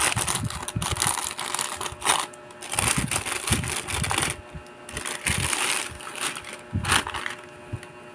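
Plastic courier pouch and bubble wrap crinkling and rustling in irregular bursts as the parcel is handled and opened, easing off near the end.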